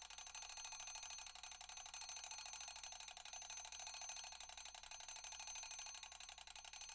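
Mechanical alarm clock ringing: its hammer strikes the bell in a very fast, even run of strikes with a steady metallic ring.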